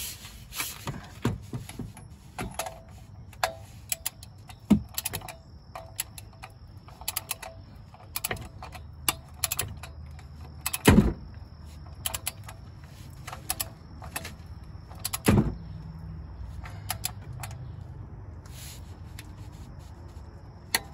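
Ratcheting torque wrench clicking in short runs as a bolt is tightened, with metal clinks of the tool and two heavier knocks. Near the end there is a single sharp click as the wrench breaks over at its set 36 ft-lb.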